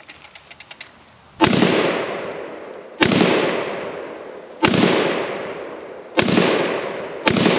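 Zastava M77-PS semi-automatic rifle in .308 firing five single shots, roughly one and a half seconds apart, each bang followed by a long echo dying away.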